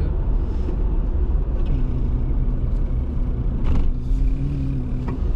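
Car driving on a rough road, heard from inside the cabin: steady low engine and road rumble, with a single knock about four seconds in.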